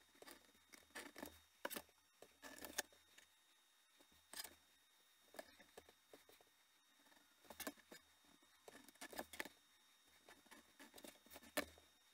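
Faint, irregular scrapes and clicks of a steel ruler being shifted and held on a cutting mat while a pointed inscribing tool is drawn along its edge, scoring lines into leather.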